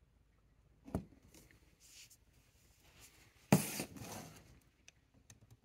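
Handling noise from a wooden-stocked rifle on a cardboard box: a soft knock about a second in, then a louder knock with a short rustle a little past halfway, and a few light ticks near the end.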